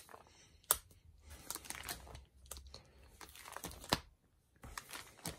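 Plastic pocket pages of a trading-card binder being turned, with a soft rustling and crinkling and a few sharp clicks, the loudest about a second in and about four seconds in.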